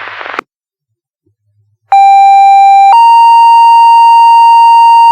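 Two-tone sequential fire pager alert over the dispatch radio, paging volunteer firefighters out to a call. It is a loud steady tone for about a second, then a slightly higher steady tone that holds on.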